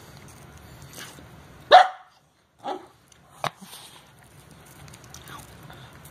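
Yorkshire terrier puppy giving a few short, sharp barks, the loudest a little under two seconds in.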